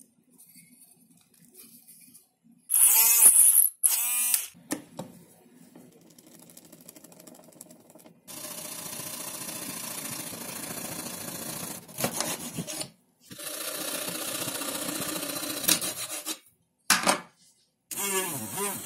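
Workshop sounds of small woodworking: a few short loud scrapes early on, then a small hacksaw cutting through a thin wooden strip in two long steady stretches. Near the end a small handheld rotary tool whirs briefly, its motor note falling, as it drills into the wood.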